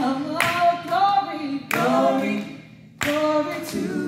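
Women's gospel group singing a cappella in harmony, with hand claps keeping time. The singing breaks off briefly a little after two seconds in, then comes back in with a clap.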